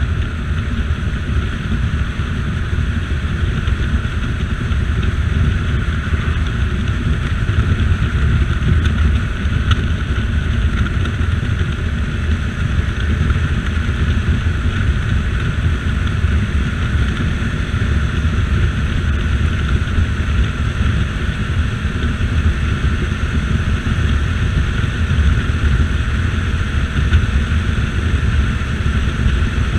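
CSC RX4 motorcycle's single-cylinder engine running steadily at cruising speed, mixed with wind rushing over the microphone.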